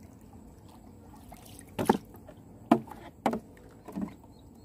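Water splashing in four short, sudden bursts, each under a second apart, over a low steady background.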